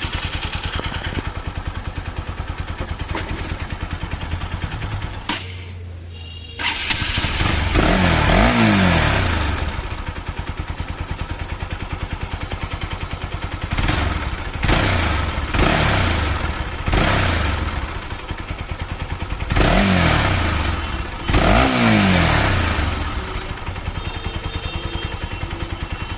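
Motorcycle engine idling, revved once at length and then blipped several times, with a regular ticking from the top end of the engine. The owner traces the tick to worn rocker-arm bearings with play in them.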